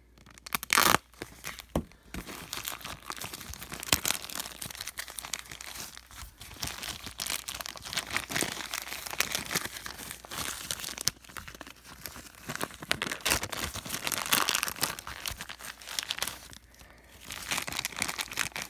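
Plastic shrink-wrap on a sealed baseball card value pack crinkling and tearing as hands pull it open, with a sharp, loud crackle about a second in.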